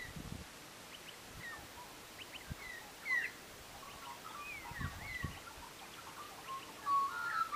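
Small birds chirping in short scattered calls over a faint outdoor background, with a few low thumps; a louder whistled note starts near the end.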